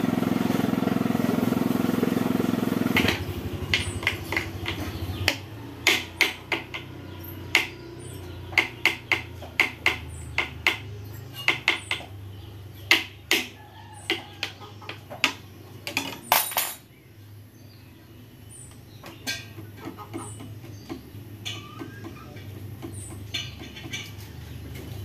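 Sharp, irregular metal clicks and clinks of a socket wrench and tools working on the cam sprocket of a Honda Revo Absolute motorcycle engine, coming thickly for about a dozen seconds and then thinning out. A loud, steady engine-like drone plays for the first three seconds and then stops.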